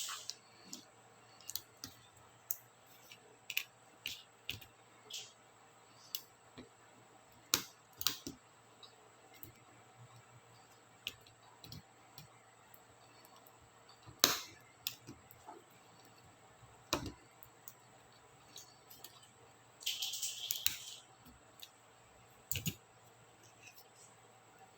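Small plastic clicks and snaps, irregular and scattered, from laptop keycaps and their scissor-switch clips being pried off and handled. A short rattling scrape comes about twenty seconds in.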